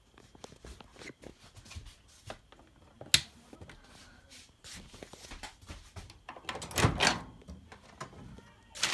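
Light clicks, taps and rustles of things being handled in a small kitchen, with a sharp click about three seconds in and a louder clatter around seven seconds in as a microwave door is opened.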